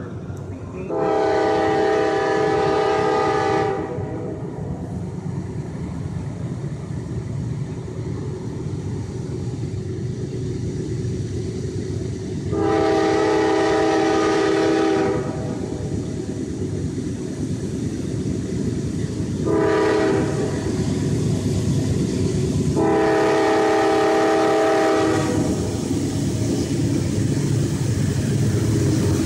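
Norfolk Southern diesel locomotive sounding its air horn in the grade-crossing pattern of long, long, short, long, the signal for an approaching road crossing. Between the blasts the locomotive's engine and the train run with a steady rumble that grows louder as it draws near.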